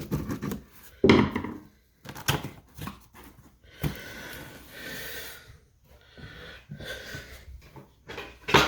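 Cardboard packaging being opened and handled: scattered knocks, bumps and scrapes, with a longer rustling, sliding stretch in the middle.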